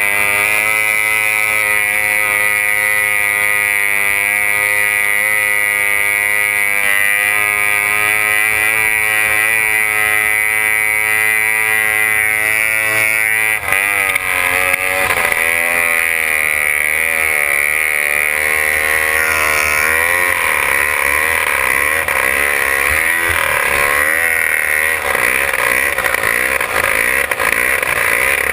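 Racing runabout's outboard engine running at high speed, heard from on board. About halfway through, the engine note stops holding steady and starts wavering up and down in pitch.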